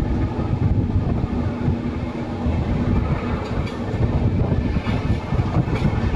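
Interregio passenger train running over the tracks, heard from inside the carriage: a continuous rumble of wheels on rails with a steady low hum beneath it.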